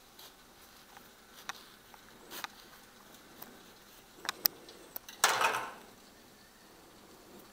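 Knife cutting up an avocado on a cutting board: scattered light taps and clicks, two sharp ticks about four and a half seconds in, then a louder scrape lasting about half a second.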